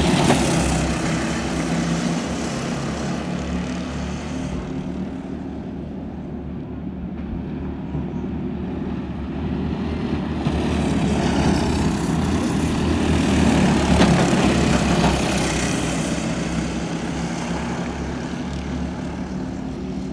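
Several go-kart engines buzzing as the karts race around a dirt oval. The sound swells loudest as they pass close about a second in and again around fourteen seconds in, then fades toward the end.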